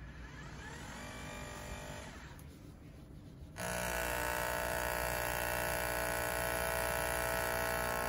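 Nespresso VertuoPlus Deluxe capsule machine starting a brew: a quieter whir rising in pitch, then about three and a half seconds in a much louder, steady high whir as the capsule spins at speed.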